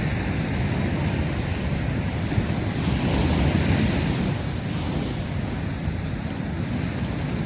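Sea waves washing onto the shore, with wind buffeting the microphone. One wave swells up and hisses about three seconds in, then falls back.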